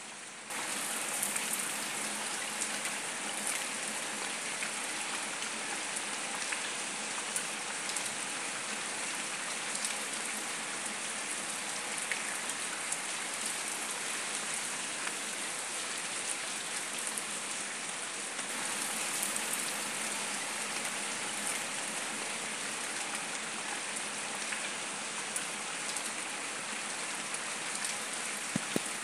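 Heavy rain falling on wet concrete paving: a steady hiss of drops splashing, with scattered sharper drop hits. It gets a little louder about half a second in.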